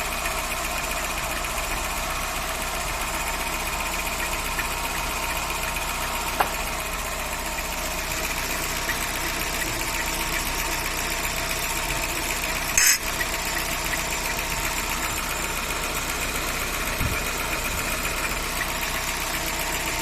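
Volkswagen AP 1.6 four-cylinder engine running steadily at idle, which the owner suspects has a noise from the plastic timing-belt cover rubbing somewhere. A brief sharp noise sounds about 13 seconds in.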